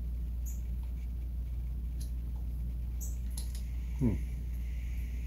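Faint clicks and ticks of small brake-lever parts being handled and turned, over a steady low hum, with one short sound that drops quickly in pitch about four seconds in.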